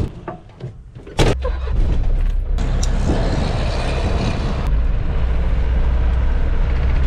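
After a brief quieter moment with a few short knocks, a bus engine drones steadily inside the cab while driving, with road and wind noise through the open side window. A loud rush of noise lasts about two seconds as a road train passes close by.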